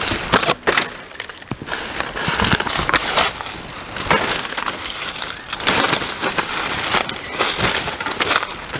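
Footsteps crunching through dry leaf litter and twigs, with leaves and branches brushing against clothing, in an irregular run of steps.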